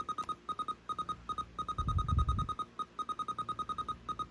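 Sony WM-FX28 radio Walkman's digital tuner during automatic tuning: a rapid series of short high beeps, about eight a second in irregular runs broken by short gaps, as the tuner scans the FM band.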